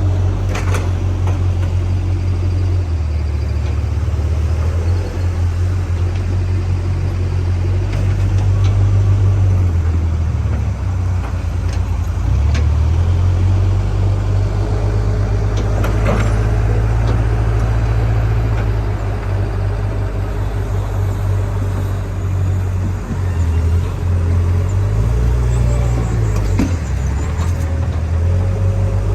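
Backhoe loader's diesel engine running steadily, its pitch shifting up and down several times as the load changes, with a few short knocks and clatters over it.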